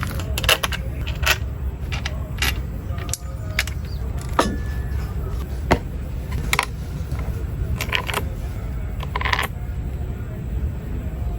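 Parts of a brush cutter clicking and knocking as it is assembled by hand: irregular sharp clicks and light clatter of plastic and metal pieces over a steady low hum.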